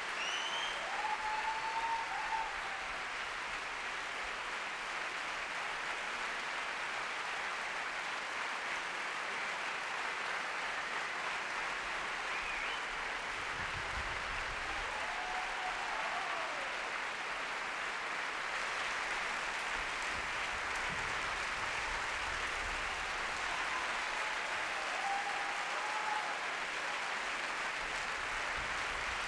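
Large audience applauding steadily, with a few brief calls rising above the clapping now and then.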